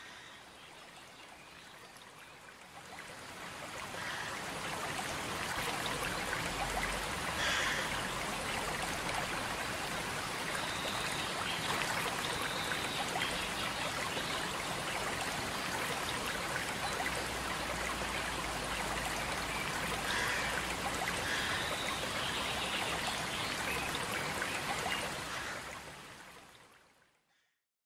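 Steady rushing of a flowing stream, fading in over the first few seconds and fading out near the end.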